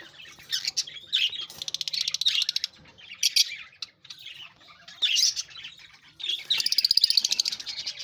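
Fischer's lovebirds chirping shrilly, with two longer fast rattling chatters, one about one and a half seconds in and one near the end.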